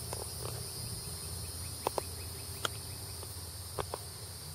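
Steady high-pitched chirring of insects, with a low hum beneath it. A few light knocks come in two quick pairs, about two seconds in and near the end, with a single one between them.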